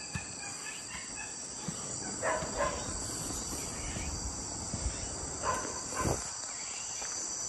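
Steady high-pitched chorus of insects, with a few brief louder sounds about two seconds in and again around five to six seconds in.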